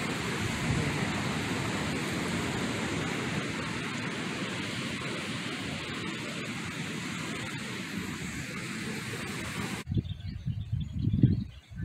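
Steady, even rush of wind and ocean surf. Near the end it changes abruptly to low, gusty wind buffeting the microphone.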